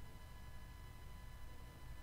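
Faint room tone: a steady low hum with a few thin, steady high-pitched tones and no distinct sounds.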